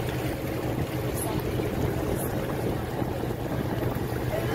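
Tour boat underway on open water: a steady, even, low engine drone with a haze of wind and water noise.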